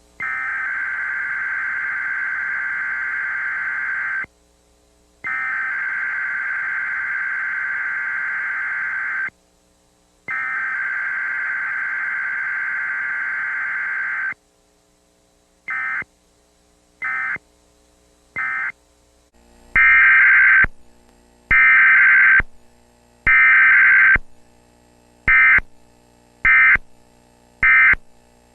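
Emergency Alert System Required Weekly Test data bursts: buzzy, screeching digital tones with no voice message. Three long header bursts of about four seconds each, a second of silence between them, are followed by three short end-of-message bursts. About nineteen seconds in, a second, louder weekly test sends three shorter header bursts and then three short end-of-message bursts.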